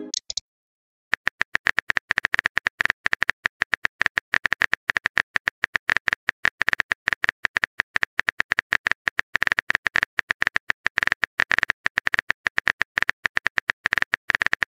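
Phone keyboard typing sound effect: a fast, uneven run of short clicks, starting about a second in, as a text message is typed out letter by letter.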